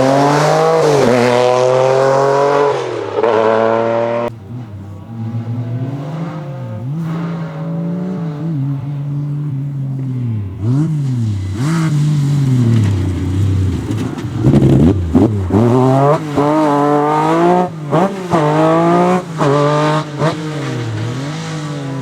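MG Metro 6R4 Group B rally car's naturally aspirated 3.0-litre V6 driven hard. The engine note climbs and drops repeatedly as it is revved through the gears. Near the end comes a quick run of short rises and dips in pitch.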